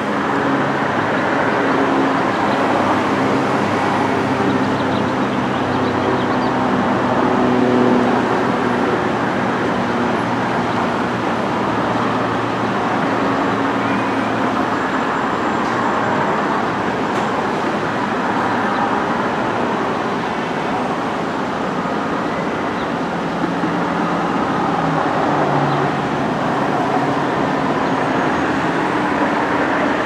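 Steady drone of heavy engines over a constant rushing hum, with a low, pitched engine note that holds through the first half and fades about halfway through.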